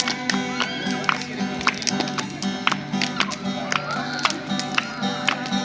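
Acoustic guitar strummed in a steady rhythm, accompanying hymn singing between sung lines.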